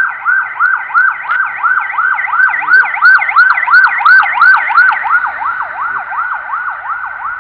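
Ambulance siren in a fast yelp, its pitch sweeping up and down about three times a second. It grows louder to a peak about halfway through, then fades.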